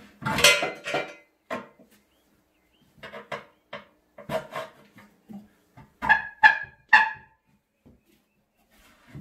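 A steel tyre lever works the bead of a new rear tractor tyre, the Ferguson TE20's, over its steel rim. It makes a run of scrapes and knocks as the rubber is forced over the rim edge, and just after six seconds come three short squeaks with a clear pitch.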